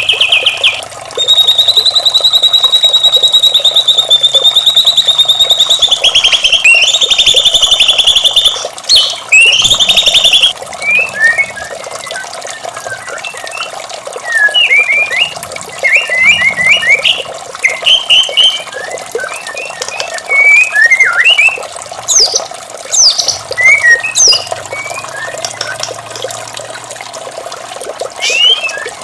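White-rumped shama (murai batu) singing: a long, loud, rapid rattling trill for several seconds, then a string of short, varied whistled notes sliding up and down, over a steady wash of running water.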